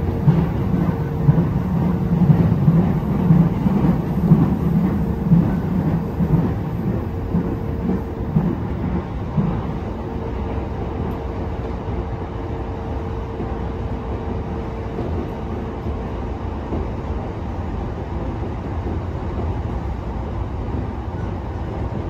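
Electric train running: a steady low rumble with a faint steady hum, the rumble heavier for the first nine seconds or so, then settling lower.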